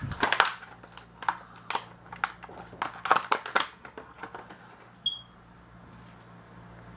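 Plastic miniature packaging being handled and crinkled, a quick run of sharp crackles and clicks over the first few seconds, then a brief squeak about five seconds in.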